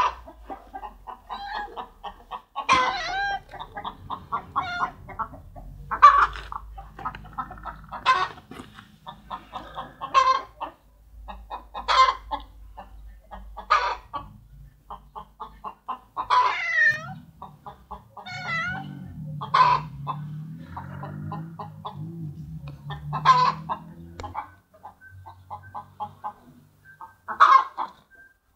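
Chickens clucking steadily, with a louder call about every two seconds. A low hum runs underneath for several seconds past the middle.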